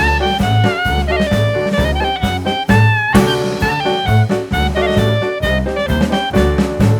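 Background music: upbeat swing-jazz with a melody line over walking bass and drums.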